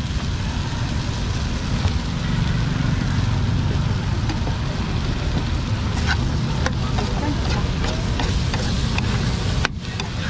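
Metal spatula scraping and clacking against a wok as corn kernels are stir-fried, with light sizzling, over a steady low rumble.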